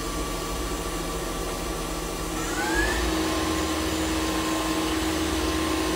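The spindle of a Doosan Lynx 220LSYA CNC lathe spins its collet chuck with a steady mechanical whine. About two and a half seconds in, the whine rises in pitch as the spindle speeds up toward about 2500 RPM, then holds steady, slightly louder.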